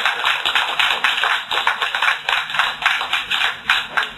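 Audience applauding after a joke's punchline, a dense patter of claps that dies away abruptly near the end, heard on a narrow-band recording.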